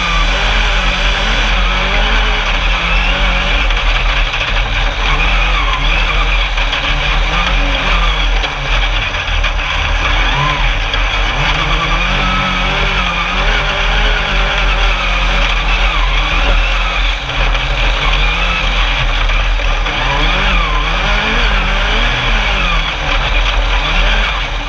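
Alumicraft single-seat Class 10 off-road race car's engine running hard, its pitch rising and falling again and again with throttle and gear changes, over a constant noisy background.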